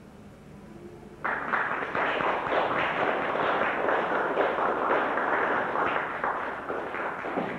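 Audience applauding, breaking out suddenly about a second in and dense with many overlapping claps, easing off near the end.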